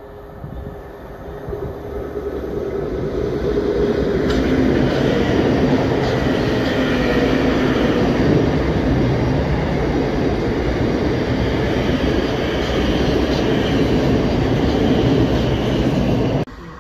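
Thameslink Class 700 electric multiple unit running past a station platform: wheel-on-rail rumble with a steady motor whine, building over the first few seconds and staying loud, then cutting off abruptly near the end.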